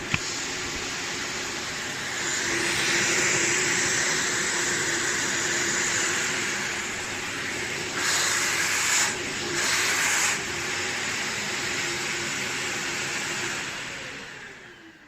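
Bagless vacuum cleaner running with a steady rushing of air over a motor hum. It grows louder about two seconds in, has two short louder surges of suction noise at about eight and ten seconds, then dies away near the end as it is switched off.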